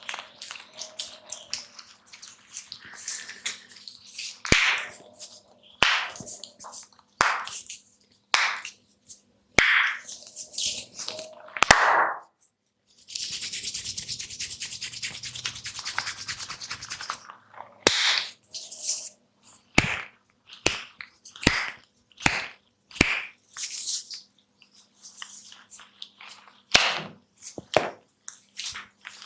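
Close-miked massage of the head and hair by a barber's hands: a run of sharp crackles and snaps about a second apart. About thirteen seconds in comes roughly four seconds of fast, scratchy rubbing.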